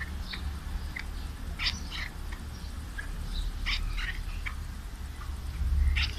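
Short high-pitched animal calls in scattered clusters of quick chirps, over a low steady hum.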